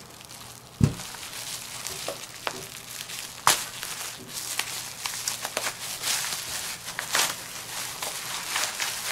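Bubble wrap crinkling and crackling as it is pulled open and unwrapped by hand, with a soft thump about a second in.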